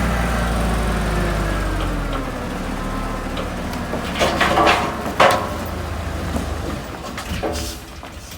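Dump truck's diesel engine running with its revs falling, then two short, loud bursts about four and five seconds in.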